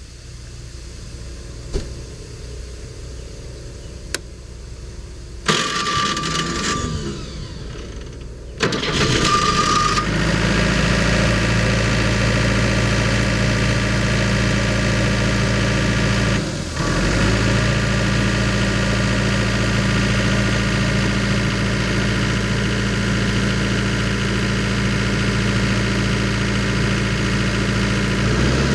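Atlas Copco portable air compressor's engine being started: about five seconds in it cranks, with a high steady tone sounding, and it catches at about nine seconds. It then runs steadily, with a brief dip in the middle.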